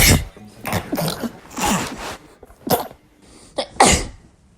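A person sneezing several times in quick succession: a string of short, sharp sneezes, the loudest right at the start and again near the end.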